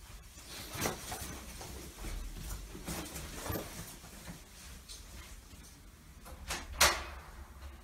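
Someone walking out of a room through a door: soft footsteps and small knocks, then a sharp door click just before the end.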